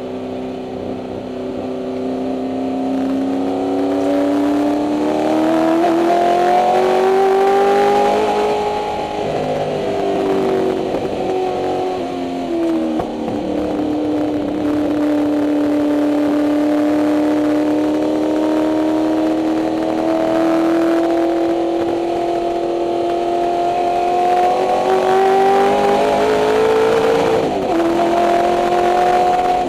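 1964 Ford Mustang race car's 289 Windsor V8 running hard on track, heard from inside the cabin. The engine note climbs for several seconds and then eases back. It then climbs slowly for a long stretch and falls off sharply near the end as the driver lifts off.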